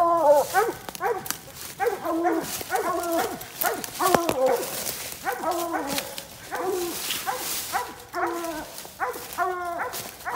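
Coonhounds barking treed at a raccoon, a steady run of bawling barks at about two a second.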